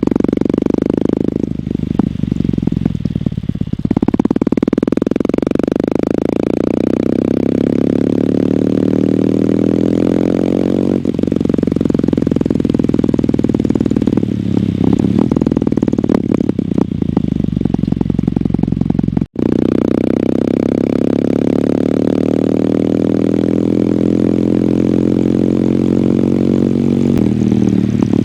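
Kawasaki W800's air-cooled parallel-twin engine through its stock exhaust, ridden under way: the engine note climbs slowly in long pulls and drops back at each gear change, about every seven or eight seconds, with a short throttle-off dip in the first few seconds.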